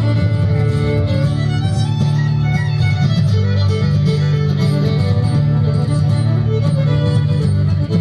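String band playing a bluegrass/old-time tune live: two fiddles carry the melody over strummed acoustic guitar and plucked upright bass.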